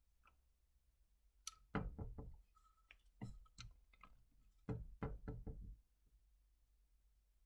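Handling noise from fingers holding and turning a black opal rub: scattered soft knocks and clicks in two main bunches, about a second and a half in and again about five seconds in, over a quiet background.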